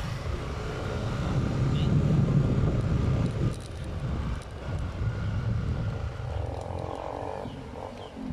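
Motorcycle engine running as it rides along, a steady low hum mixed with road and wind noise, swelling about two seconds in and easing a second later.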